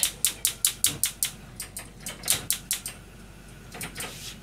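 A quick run of sharp clicks or taps, about five a second for the first second and a half, followed by a few more scattered ones.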